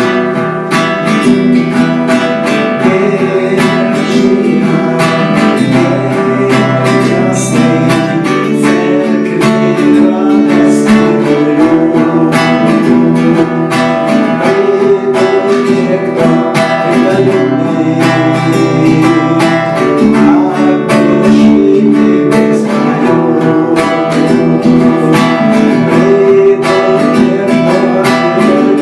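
Acoustic guitar strummed, playing a song, with singing.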